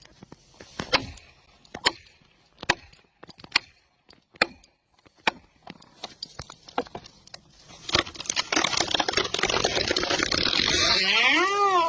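Wood being chopped, sharp chop strokes into a tree trunk about once a second. About eight seconds in, a dense rushing noise builds and grows louder, with a single rising-and-falling shout near the end.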